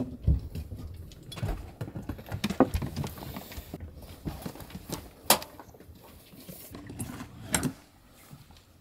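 Scattered knocks and footfalls on a boat's deck and in an inflatable dinghy as a man and a dog move about and climb down into the dinghy, with a low rumble underneath. The loudest knock comes about five seconds in, and it grows quieter near the end.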